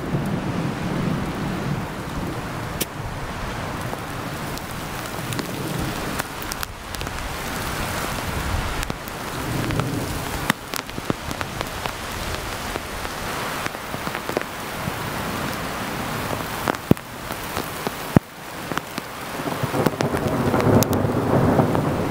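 Heavy rain falling steadily, with wind rumbling on the microphone and a few sharp ticks now and then.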